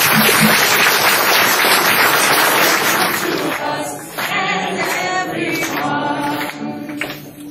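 Audience applause for about the first three seconds, then from about four seconds in a group singing, led by a woman at a microphone with an acoustic guitar.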